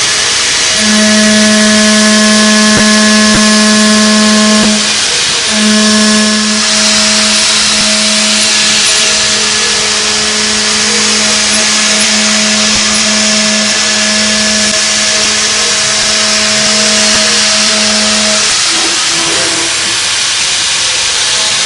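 CNC milling machine cutting with an end mill: a steady pitched tone over a constant hiss. The tone breaks off briefly about five seconds in and stops near the end.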